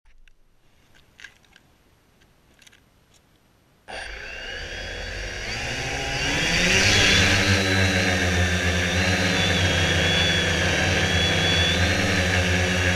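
Quanum Venture quadcopter's electric motors and propellers spinning up: after a few faint clicks, they start suddenly about four seconds in, rise in pitch for a couple of seconds, then run steadily with a high whine.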